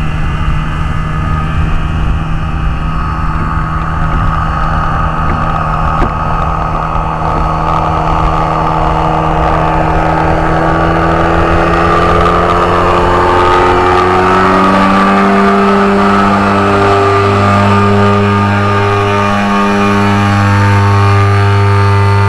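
Rotax 447 two-stroke twin engine of a powered parachute running at flight power as it flies low past. About halfway through its pitch drops as it goes by, and it then holds a steady, slightly louder note.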